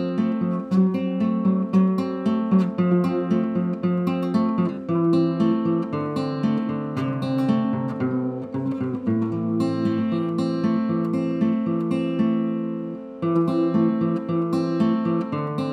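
Background music: an acoustic guitar picked and strummed, with a short dip in loudness near the end.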